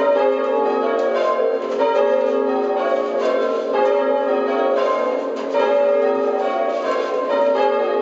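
A ring of five church bells, tenor 10 cwt in A-flat, rung full-circle in rounds: the bells strike one after another from highest to lowest in an even, repeating rhythm, their tones overlapping as each rings on.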